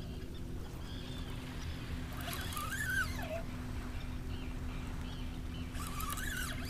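Two drawn-out animal calls, each rising and then falling in pitch and lasting about a second, over a steady low hum.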